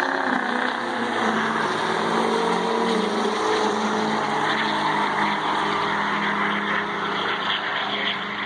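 Two diesel pickup trucks racing down a drag strip at full throttle, with the steady drone of their engines as they pull away.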